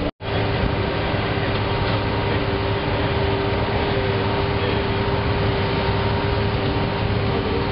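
Asphalt drum plant machinery running steadily: a loud, even noise with a constant hum through it. It is cut off for an instant just at the start.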